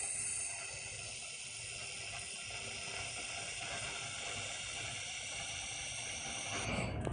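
Handheld laser welder running a weld along a thin sheet-metal corner joint: a steady, even hiss that cuts off near the end as the weld stops.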